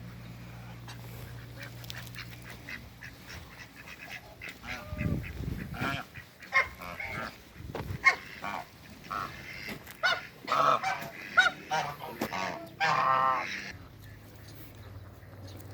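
Domestic waterfowl calling: a string of short, pitched calls starting about five seconds in, loudest near the end. A low steady hum runs underneath at first and fades about five seconds in.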